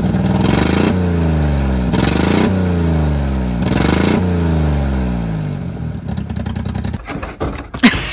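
Daihatsu Hijet pickup's small engine revved three times, each rev climbing quickly and sinking slowly back, then dying away. Near the end come scraping clatter and one sharp knock.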